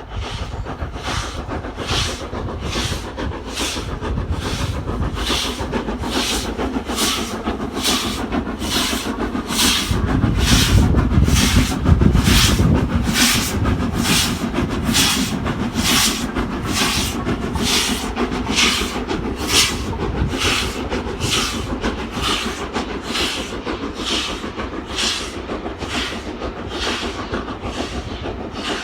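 Steam locomotive working under steam, its exhaust giving steady, even chuffs about one and a half a second over a low rumble. The rumble grows louder between about ten and fourteen seconds in.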